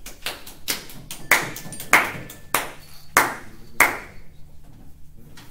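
A series of about seven sharp, ringing strikes, evenly spaced a little over half a second apart, then stopping about four seconds in.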